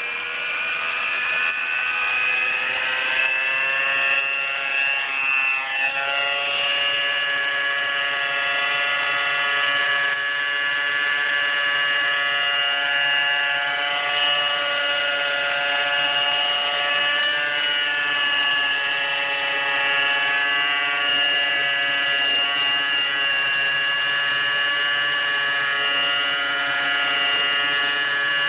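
Align T-Rex 600 nitro flybarless RC helicopter, its glow engine and rotor blades whining at high rpm. The pitch wavers and slides for the first six seconds as it flies down from high up, then holds steady while it hovers low.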